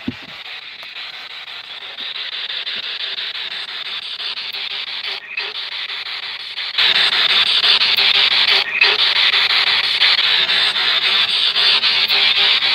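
Radio static from a ghost-hunting spirit box sweeping through stations: a steady hiss, louder from about seven seconds in, broken by a few brief dropouts.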